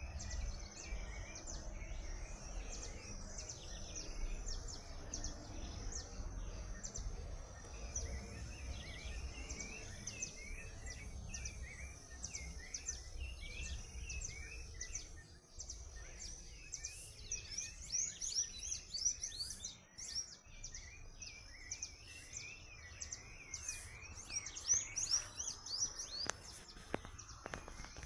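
Bird calls: a dense run of short, quick chirps repeated over and over at two pitches, one middle and one high, growing busier and louder in the second half. A low rumble sits underneath.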